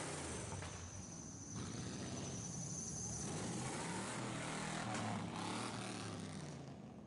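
Engines of classic cars and a pickup truck running at low speed as they drive past in a slow line, their low rumble rising and falling in pitch as each one passes. A thin, high steady whine sounds from about half a second to three seconds in, and the engine sound fades near the end.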